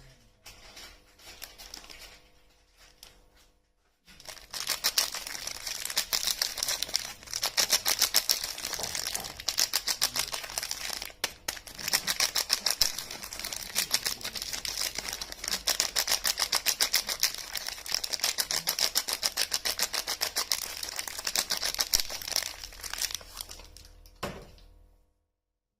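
Close-up crinkling and rustling of soap packaging being handled and unwrapped: a dense, rapid crackle that starts about four seconds in and stops shortly before the end.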